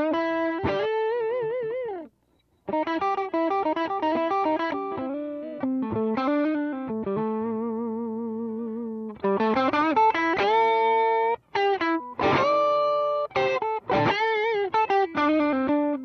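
Electric guitar played through a Demonfx Breaker Drive, a Marshall Blues Breaker-style overdrive pedal, switched on. Single-note lead lines with vibrato and string bends, a brief pause about two seconds in, and faster runs in the second half.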